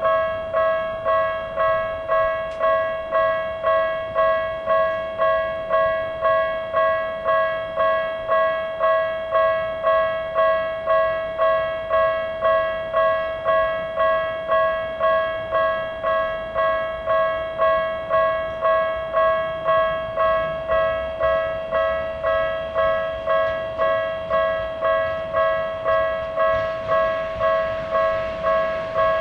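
Japanese level-crossing electronic warning bell, in the Tokyu-style tone, ringing steadily about three strikes every two seconds, each strike fading before the next: the crossing signal for an approaching train. Near the end a rising rush of train noise starts to come in under it.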